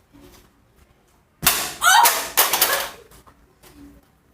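A plastic toy car bouncing off a balloon. About a second and a half in comes a sudden loud hit and clatter with some brief squeaky pitched sounds, fading out after about a second and a half.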